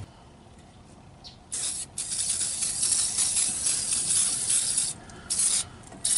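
WD-40 aerosol can spraying: one long hiss of about three seconds, then two short squirts near the end, lubricating a stuck deck-level adjuster on a riding mower so it moves freely.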